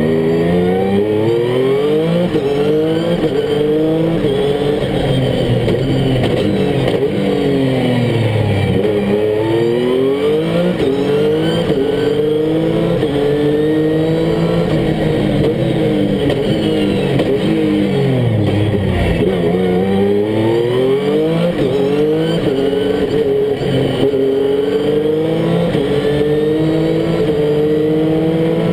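Dacia Duster No Limit race car's engine heard from inside the cockpit, revving hard and climbing in pitch through the gears with quick drops at each upshift. Twice, about nine and nineteen seconds in, the revs fall right down as it slows for a bend, then build again.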